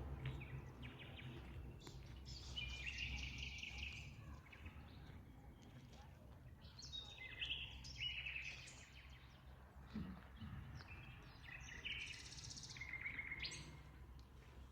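Birds chirping and trilling in short bursts over a faint, steady low hum.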